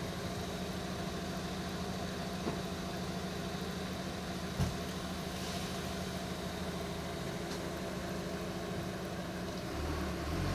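Steady machine hum, like an engine running, with a low drone and a few fainter higher tones. A brief click sounds about two and a half seconds in and a sharper one a couple of seconds later.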